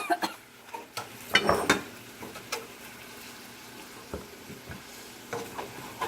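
Chicken pieces frying in hot oil with a steady sizzle, while a spatula scrapes and knocks in the pan a few times as the pieces are lifted out to drain.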